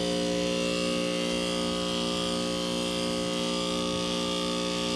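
Residential heat pump outdoor unit running: a steady compressor and fan hum with several low tones held level.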